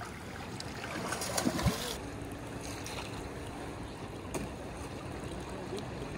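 Swift river current rushing and lapping around a wading angler. A brief louder sound comes about a second and a half in, and the hiss of the water changes abruptly about two seconds in.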